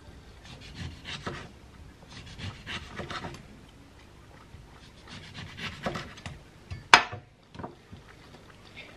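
Kitchen knife slicing through an orange on a wooden chopping board: soft, rasping strokes as the blade saws through the peel, with one sharp knock about seven seconds in.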